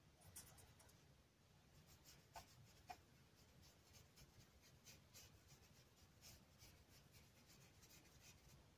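Faint, scratchy strokes of a paintbrush swept back and forth over Winsor & Newton acrylic paper, laying on a watercolour wash, with two light ticks about two and a half and three seconds in.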